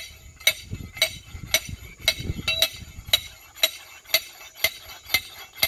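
A stainless steel self-pounding grill stake being driven into the ground: a steady series of ringing metallic clanks, about two a second.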